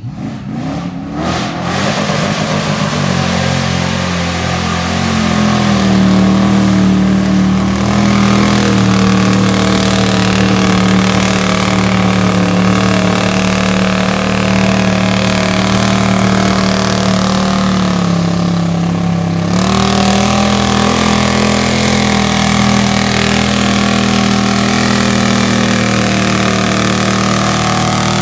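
Lifted mud truck's engine revved hard and held at high revs while its tyres spin through the mud. The revs climb over the first few seconds, sag briefly about two-thirds of the way through, then climb back and hold.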